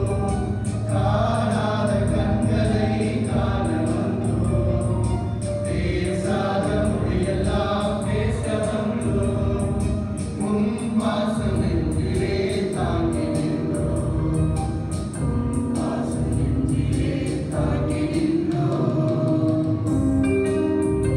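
Male choir singing in parts, with keyboard, guitar and drum accompaniment. Near the end the voices stop, leaving the instruments playing.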